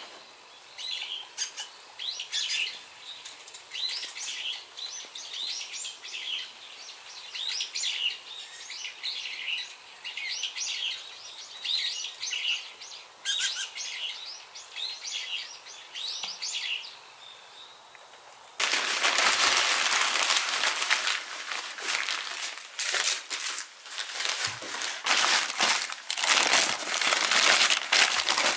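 Small birds chirping, many short high calls. About two-thirds of the way through, this gives way abruptly to louder crumpling and rustling of paper as it is folded around vegetables.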